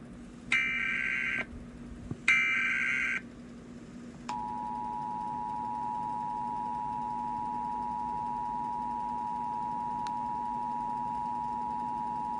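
Emergency Alert System tones: two short screeching bursts of digital header data about two seconds apart, then the steady two-tone EAS attention signal, held for about eight seconds.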